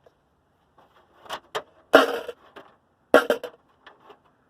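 Hand tools knocking and clanking against an old pickup's body while a fender and door are being taken off: several short, sharp knocks, the loudest about two seconds in and a quick cluster a little after three seconds.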